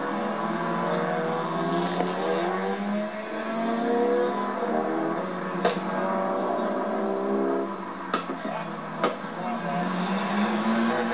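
Rallycross Stock Hatch race car engines revving hard on the circuit, their pitch climbing and dropping back several times as they change up through the gears. A few short sharp cracks stand out about halfway through and near the end.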